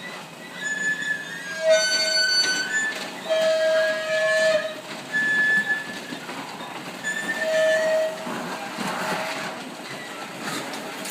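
Garage door closing with loud metal squealing: a series of high squeaks, each up to about a second long, over a steady rattling run noise.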